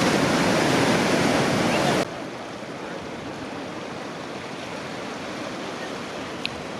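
Ocean surf rushing, loud for about two seconds and then abruptly dropping to a quieter, steady rush, with a brief click near the end.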